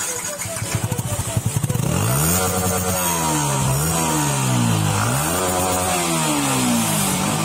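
Yamaha R15 V3's single-cylinder engine, still on its stock exhaust, cranking for a couple of seconds and catching. Once it starts, it is revved up and let fall back about three times.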